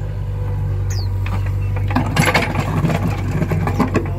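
Volvo EC55B mini excavator's diesel engine running steadily, with the bucket scraping and knocking against wet mud and ground for the second half.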